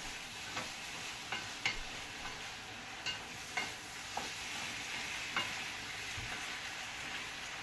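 Beef tibs with tomatoes and onions sizzling in a metal frying pan, stirred with a wooden spoon that knocks and scrapes against the pan at irregular moments, every half second to a second.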